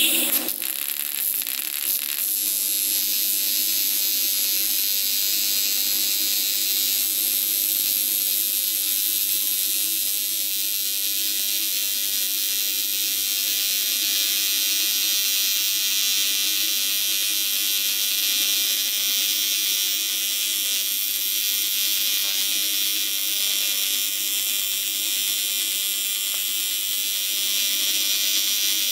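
AC TIG welding arc on aluminum, a steady, even buzz that starts right at the beginning.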